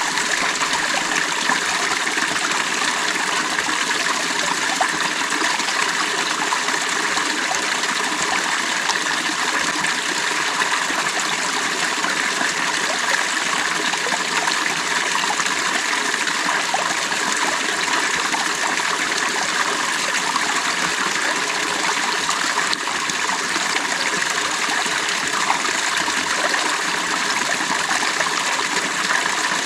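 Creek water running and babbling in a steady, unbroken rush.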